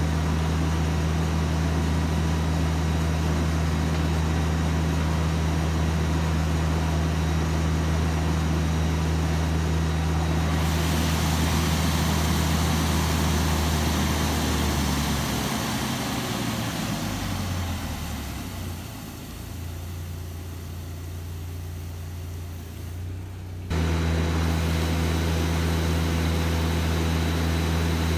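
Small gasoline engine of a portable water pump running steadily with a low drone. About ten seconds in, a rushing hiss of water jetting up out of a standpipe joins it. Later the drone thins and drops in level for several seconds, then comes back abruptly near the end.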